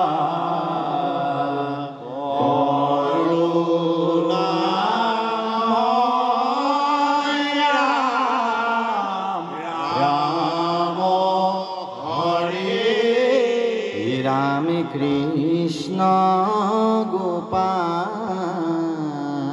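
Group of men chanting God's names together in Assamese devotional naam-prasanga style, in long, drawn-out sung phrases with overlapping voices.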